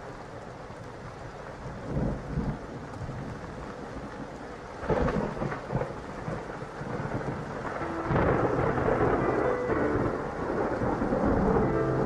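Thunderstorm sound effect in a performance backing track: steady rain with rumbles of thunder, one about two seconds in, another about five seconds in, and a longer, louder rumble from about eight seconds on.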